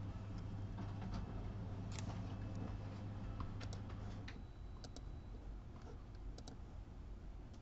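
Faint, scattered light clicks and taps over a steady low hum; the hum stops about four seconds in.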